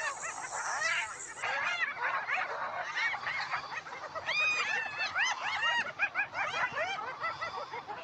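A group of spotted hyenas giggling and squealing while mobbing a lion: many short, high calls overlapping, each quickly rising and falling in pitch.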